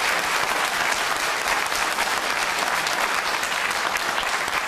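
A large seated audience applauding, with many hands clapping in a dense, steady patter.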